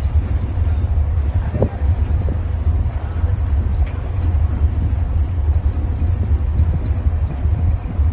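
Steady low rumble and rushing noise of a large passenger ship under way at sea, with wind buffeting the microphone.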